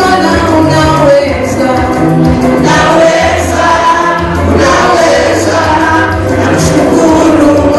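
A choir singing a gospel praise-and-worship song over instrumental backing with a steady bass line.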